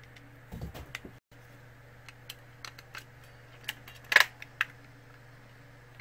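Plastic case of an air-conditioner remote control being handled and snapped back together around its circuit board: a few dull knocks, then scattered light clicks, with the loudest sharp snap about four seconds in.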